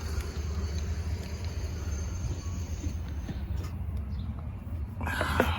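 Steady low background rumble, with a short clatter of small metal parts being handled about five seconds in, as a new spark plug is readied.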